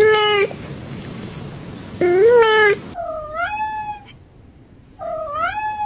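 Domestic cat meowing four times, a short meow followed by three longer, drawn-out ones.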